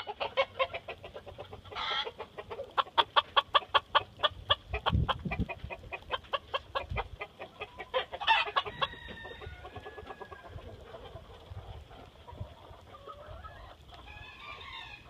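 Chickens clucking in a fast run of short, sharp notes, about five a second, that thins out after about seven seconds, with a couple of longer calls in between. Wind gusts buffet the microphone a few times.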